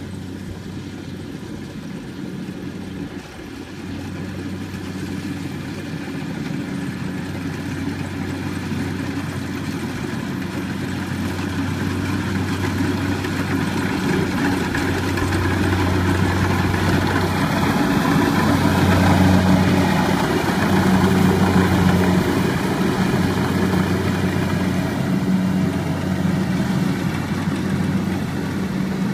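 Kubota crawler combine harvester running steadily as it harvests rice, a constant engine hum that grows louder as it approaches, loudest a little past the middle.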